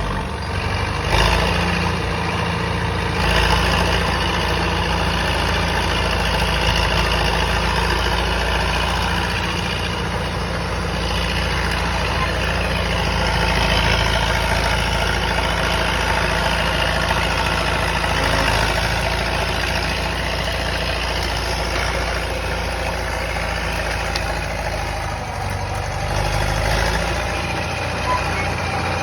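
Caterpillar D4E bulldozer's diesel engine running steadily.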